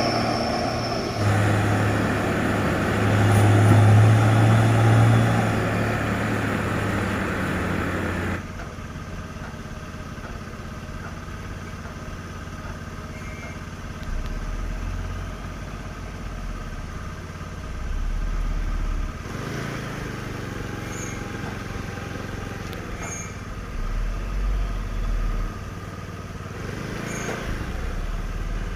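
Hino 500 truck's diesel engine running close by, loud for about the first eight seconds, then suddenly much quieter, with a few short low swells later on.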